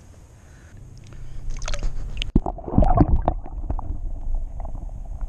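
Water splashing and gurgling as an action camera is plunged into the lake. It starts about a second and a half in, then turns dull and muffled once the camera is under, with loud low sloshing of water against the camera housing.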